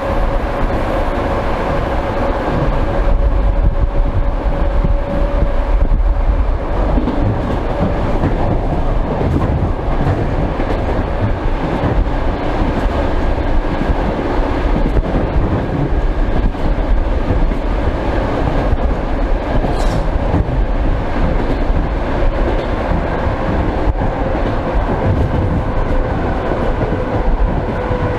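Old suburban electric train running at speed, heard through an open, unglazed window: a steady rumble with wheels clattering over the rail joints and a steady whine.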